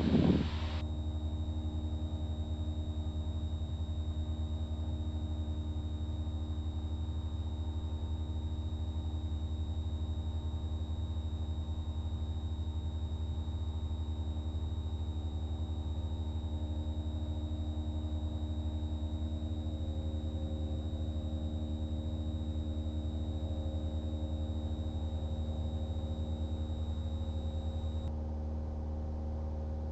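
Steady drone of a small single-engine piston airplane's engine and propeller while climbing out, heard in the cabin through the headset intercom. A faint high steady whine runs over it and cuts off near the end.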